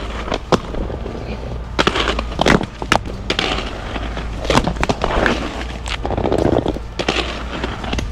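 Aggressive inline skates rolling over rough concrete, with about eight sharp clacks of wheels, frames or soles striking pavement or a ledge spread through.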